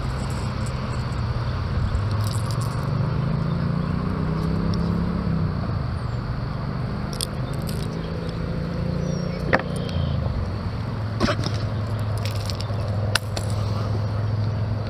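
A motor engine running steadily, its pitch gliding and shifting a few times, with a few sharp clicks over it in the second half.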